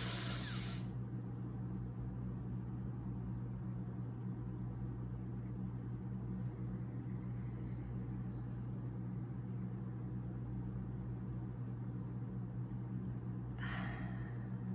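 A woman's deep inhale through the nose, as a breathing exercise, in the first second, then a steady low hum while the breath is held, and a short breath out near the end.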